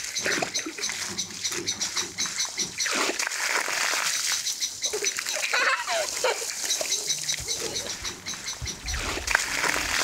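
Water from a garden hose spraying and splattering down, with a small child squealing as she plays in the spray.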